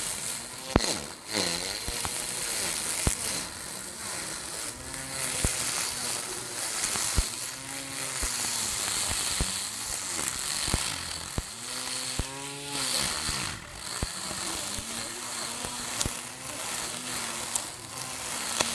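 Small electric grass trimmer cutting thick grass: the motor whines, its pitch swinging up and back down every second or two as the load on the cutting head changes. Frequent sharp ticks run through it.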